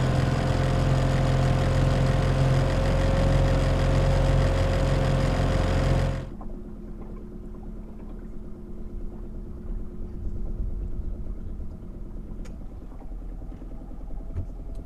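Small tiller outboard motor running steadily, pushing a skiff along at cruising speed with water rushing along the hull. It cuts off suddenly about six seconds in, leaving a much quieter steady low hum with a few faint clicks.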